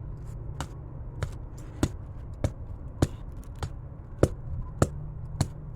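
Regular knocking: about nine sharp taps, evenly spaced a little over half a second apart, over a low steady hum.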